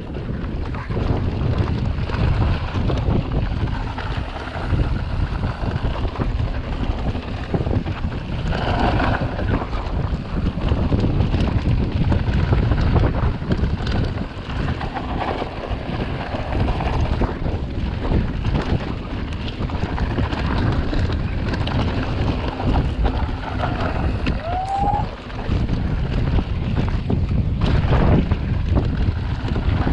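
Wind rushing over the microphone and a steady low rumble from a mountain bike riding down a dirt trail, with a few short squeaks.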